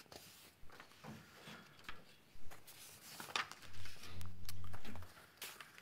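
Sheets of paper rustling and shuffling in hand, with scattered light clicks and taps. About four seconds in, a low steady hum lasts about a second.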